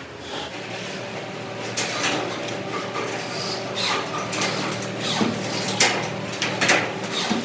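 Workshop noise: a steady machine hum with irregular knocks and clatters of handled metal parts, more frequent in the second half.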